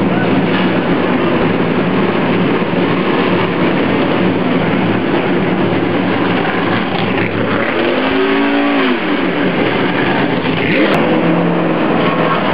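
NASCAR stock car V8 engines running loudly and steadily. About eight seconds in, one engine's pitch rises and then falls as it is revved or passes close by, and another climbs briefly a few seconds later.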